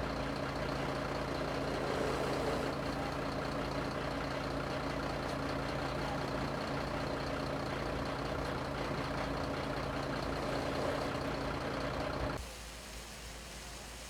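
Heavy vehicle engine running steadily with a constant hum. It cuts off abruptly about twelve seconds in, leaving quieter background noise.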